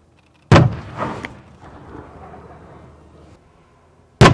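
Two loud explosions nearly four seconds apart. Each starts suddenly and is followed by a rumbling echo that dies away over a second or two.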